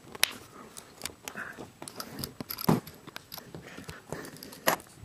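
Screwdriver prying at the plastic case of a laptop AC power adapter: irregular clicks, scrapes and small cracks of plastic, with sharper snaps about a quarter second in, near the middle and near the end.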